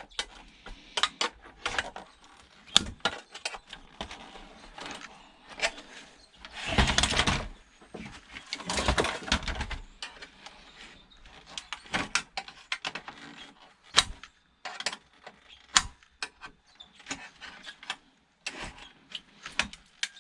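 Hand tools and metal parts of a DVD player being worked apart: scattered clicks, taps and knocks, with two longer scraping sounds about seven and nine seconds in.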